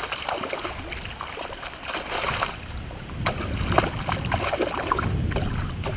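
A hooked fish thrashing at the surface of a lake, splashing and churning the water, with a low rumble building in the second half.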